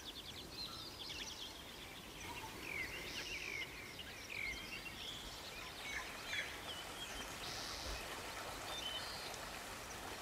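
Several birds singing and calling: many short chirps, rising and falling whistles and trills, over a faint steady rush of flowing water.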